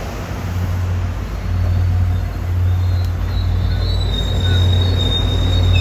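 MBTA commuter rail coaches rolling past close by, with a steady low rumble and clatter of wheels on the rails. About four seconds in, a thin, steady, high wheel squeal starts and continues.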